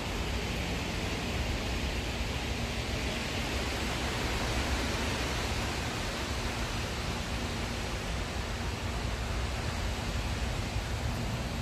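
Strong wind blowing steadily through the leafy crowns of large trees, a continuous rushing hiss, with a low rumble of wind on the microphone.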